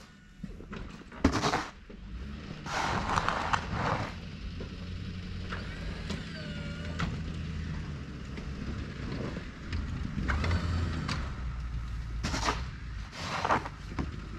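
2009 Ford F-250 pickup with a snow plow, its engine running steadily. A sharp knock comes about a second in, then several bursts of noise and a few short squeaks near the middle.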